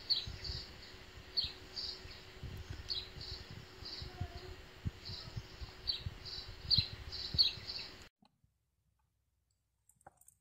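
High-pitched chirping in an even rhythm of about two chirps a second, mixed with a few sharper short chirps and low thumps, in outdoor ambience; it cuts off suddenly about eight seconds in.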